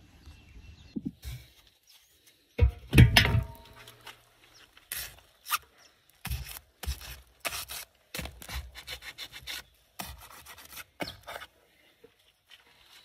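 Irregular crinkling and rustling of aluminium foil as foil-wrapped pork on a kettle grill is handled and probed, with a louder clatter about three seconds in.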